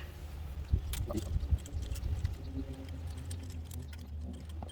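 Hands handling small steering-wheel mounting bolts and nuts: light scratching and clicking, with a sharper click about a second in, over a low steady rumble.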